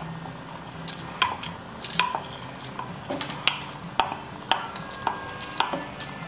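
Washed black rice being tipped from a bowl into a rice cooker's inner pot, the bowl and a wooden spoon knocking and clinking against the pot rim in about fifteen irregular sharp taps, some with a short metallic ring.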